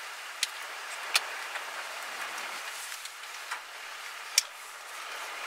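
Steady outdoor hiss of moving air, with about four sharp, irregular clicks scattered through it; the loudest click comes about four and a half seconds in.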